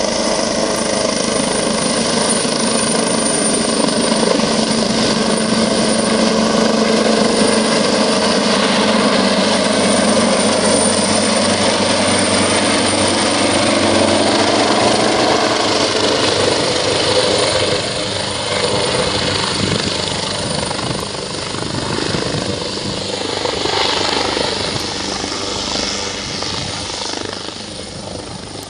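Helicopter's rotor and turbine running as it flies low close by, with a steady high whine over the rotor sound. It grows quieter over the last third.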